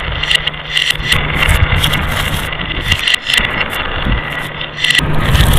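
Glass marbles rolling along a marble run track: a steady rolling rumble with many sharp clicks and ringing clinks of marbles striking the track and each other.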